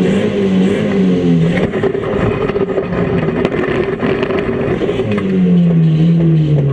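Micro banger demolition-derby car's engine revving, heard from inside its stripped cabin, the pitch rising and falling as the car is driven. Short knocks and rattles come through the middle, and from about five seconds a strong steady rev settles lower near the end.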